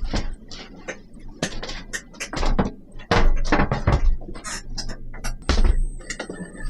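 Wooden boards and supports knocked and clattered as they are handled and fitted during bed-frame carpentry: a run of irregular knocks with a few short scraping bursts.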